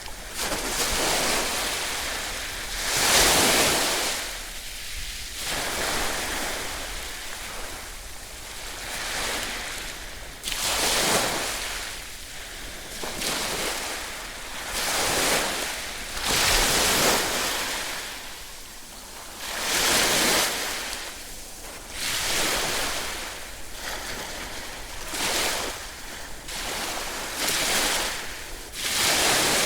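Ocean waves breaking on the shore, each surge of surf swelling and washing back every few seconds.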